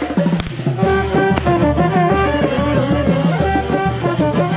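Brass band playing a melody over a steady drum beat.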